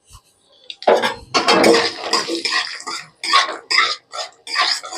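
Metal spatula stirring and scraping raw peanuts around an aluminium kadai as they fry in a little hot oil: a rattling scrape in repeated strokes, roughly two a second, starting about a second in.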